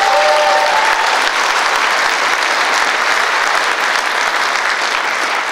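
A large seated audience in an auditorium applauding steadily, with a brief pitched cheer in the first second, the clapping tailing off just after the end.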